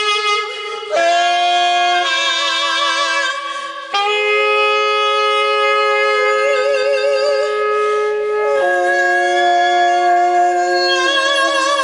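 A saxophone and a woman's singing voice hold long, sustained notes together. The notes change step by step about every three to four seconds, and the voice carries a wavering vibrato.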